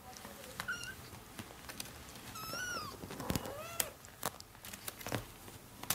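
Young kitten mewing in three short, high-pitched calls, the longest about two and a half seconds in: a kitten calling for its mother. Several sharp taps fall in the second half.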